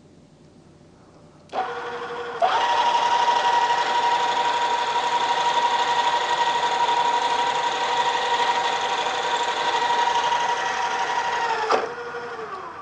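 Drill press motor starting about a second and a half in, its whine stepping up in pitch and loudness a second later and running steadily while a regular twist drill follows the center-drilled start of the hole. Near the end it is switched off and winds down with a falling whine.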